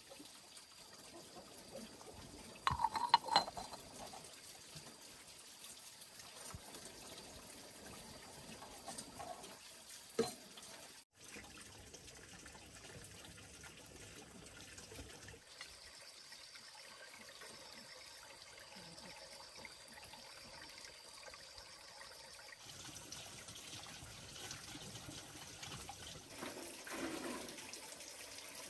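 Water trickling and splashing steadily, with a cluster of sharp knocks about three seconds in.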